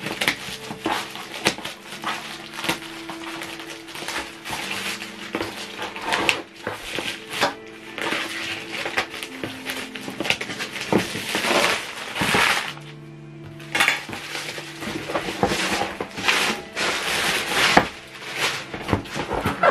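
Plastic mailing bag crinkling and rustling as it is cut with scissors and pulled off a cardboard box, with scattered clicks and knocks. Background music with steady held tones plays underneath.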